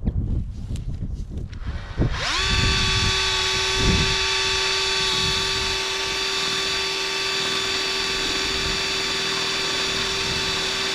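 Electric power drill spinning up about two seconds in with a quick rising whine, then running at a steady high pitch until it cuts off suddenly.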